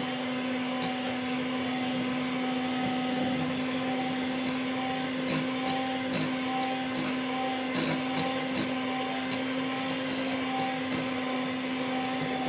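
Electric hand mixer running steadily at low speed, its beaters whirring through cake batter as the dry ingredients are mixed in, with occasional light clicks.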